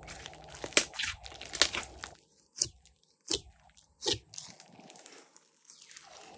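Glossy slime being squeezed and poked by hand, giving a series of sharp crackling pops and clicks, several of them a second apart, loudest in the first few seconds.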